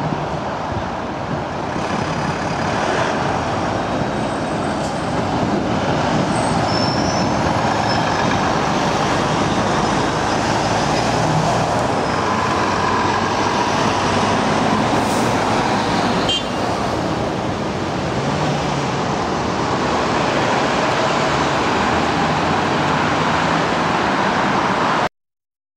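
Road traffic of heavy articulated trucks and cars passing through a junction, engines and tyres making a steady din. It cuts off suddenly near the end.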